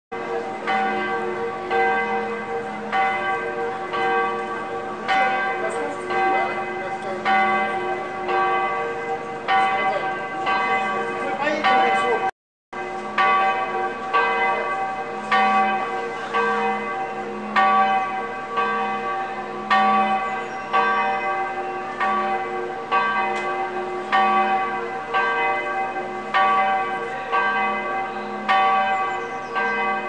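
Church bells ringing, a strike about every two-thirds of a second over a lingering hum of overlapping tones. The sound cuts out for a moment about twelve seconds in.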